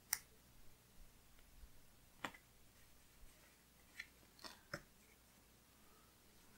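Near silence broken by a handful of faint, short clicks and ticks as fingertips press a small paper sticker onto a planner page.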